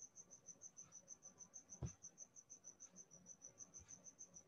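Near silence: a faint, high insect-like chirping pulsing evenly at one pitch, about eight pulses a second, with one soft click a little under two seconds in.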